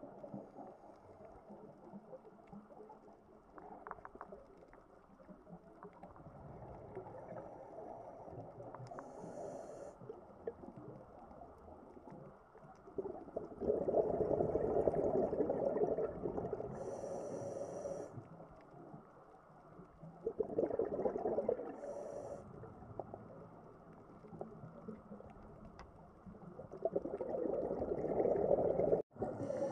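Underwater recording of a scuba diver's breathing through a regulator: brief hissing inhalations alternating with muffled, rumbling bursts of exhaled bubbles. The bubbles swell louder three times, about halfway through, around two-thirds in and near the end.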